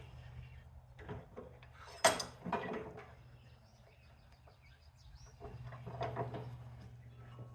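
Scattered light clicks and clinks of hand work on cut-off electrical plugs as the metal prongs are twisted and snapped out, the loudest about two seconds in, over a low steady hum.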